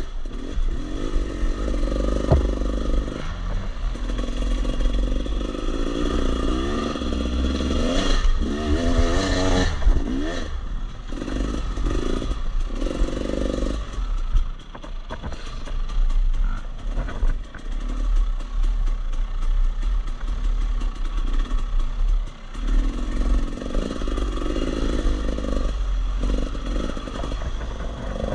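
Dirt bike engine being ridden along a woods trail, revving up and down through the gears, with clattering and a heavy low rumble throughout. The engine eases off for several seconds in the middle and then picks up again near the end.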